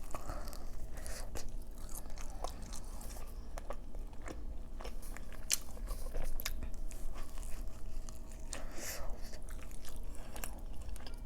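A person chewing and biting a large chicken-and-fries burrito close to the microphone, with many small, irregular mouth clicks and crunches.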